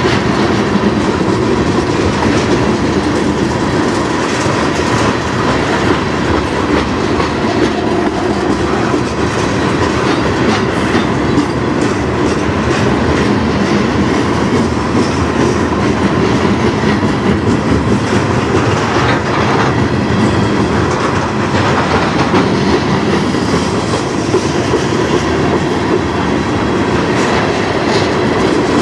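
Freight train's tank cars and covered hoppers rolling past close by: a steady, loud rumble of steel wheels on rail, broken by repeated clicks as the wheels cross rail joints.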